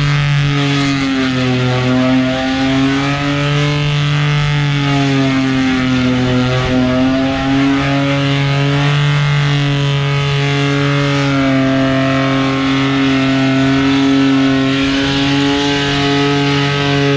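Holden VS Commodore ute's engine held at high revs through a burnout, the pitch rising and dipping slightly as the driver works the throttle, with the rear tyres spinning and smoking on the skid pad.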